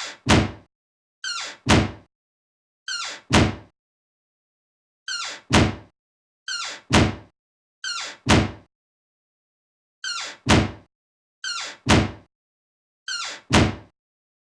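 A door being shut, repeated nine times with dead silence between. Each time a quieter latch click is followed about a third of a second later by a louder, heavier impact as the door closes.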